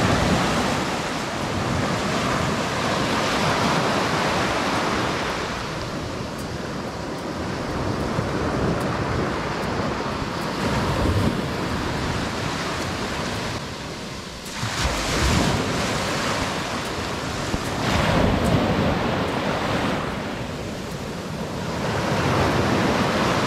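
Rushing of wind and water waves outdoors, rising and easing in slow swells every few seconds, with wind buffeting the microphone.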